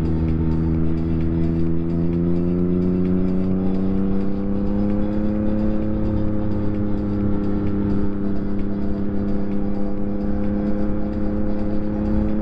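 Yamaha MT-09 SP's 890 cc inline three-cylinder engine through a full Akrapovic race exhaust, pulling in one gear: the pitch climbs slowly for a few seconds, then holds steady.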